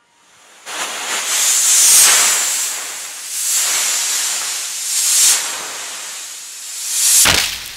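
Small rocket's motor hissing loudly, swelling and easing off several times as it flies. It ends in a sharp bang near the end as the rocket blows up.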